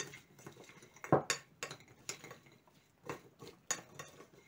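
Metal spoon clinking and scraping against a bowl while stirring frozen wild strawberries coated in starch: irregular clinks, the loudest about a second in.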